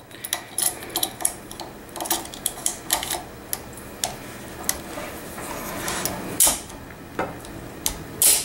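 Bolt of a Westernfield .22 bolt-action rifle being worked back into its receiver: a run of small metal clicks and scrapes, with two louder clacks, one about six seconds in and one near the end.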